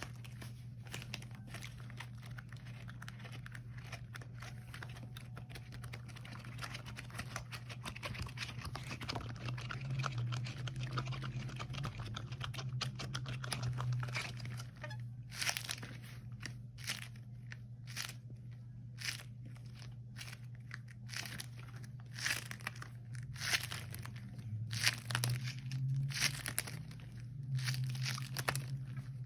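Rubber gloves handled close to the microphone, giving a dense crinkly, crackling rustle for about the first half. Then come many separate short sticky crackles, over a steady low hum.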